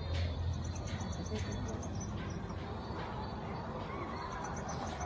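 Outdoor ambience: an indistinct murmur of distant voices under a low rumble, with a bird chirping in quick, high, repeated notes.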